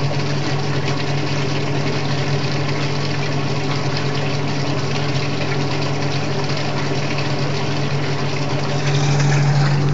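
A steady mechanical drone: a low hum under an even hiss, with no breaks. It grows a little louder near the end.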